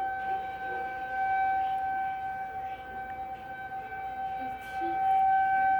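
Outdoor tornado warning siren sounding its monthly test as one steady tone that holds its pitch, fading somewhat in the middle and swelling loud again about five seconds in.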